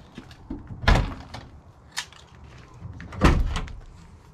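Steel rear barn doors of a Toyota FJ40 Land Cruiser being unlatched and swung open: the handle and latch clunk, with three sharp knocks about one, two and three seconds in, the first and last the loudest.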